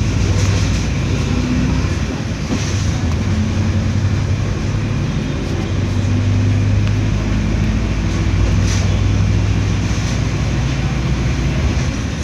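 Diesel engine of a Mercedes-Benz OF 1721L BlueTec 6 bus running, a steady low drone that shifts slightly in pitch, over a haze of road and running noise.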